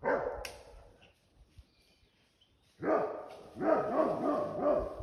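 Great Pyrenees barking: one bark right at the start, then after about two seconds a quick run of five or six barks. It is the livestock guardian dog's alert barking at something it has heard in the woods.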